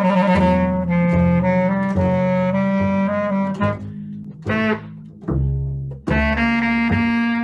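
Bass clarinet and double bass playing a free improvisation in long held notes. The playing thins out to short separate notes around four to six seconds in, then both resume.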